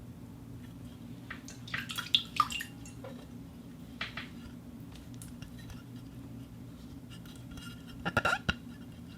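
Glass objects tapped and clinked together, each strike ringing briefly: a burst of clinks about two seconds in, a couple of lone taps, then a quick flurry near the end, over a steady low hum.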